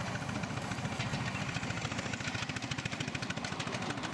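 7¼-inch gauge miniature steam locomotive, ROD No. 5319, hauling a passenger train, running with a rapid, even rhythmic beat.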